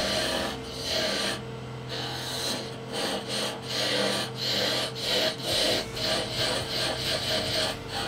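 Turning tool cutting a small spindle of pale wood on a running wood lathe: repeated short scraping cuts, a few a second, over a steady hum.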